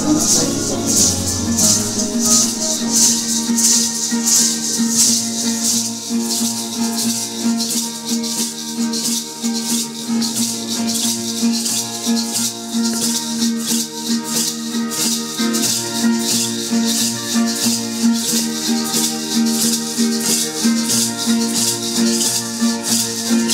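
A small wooden folk harp plucked in a repeating pattern, with a hand rattle shaken in a steady rhythm over it: traditional Tzeltal ceremonial dance music.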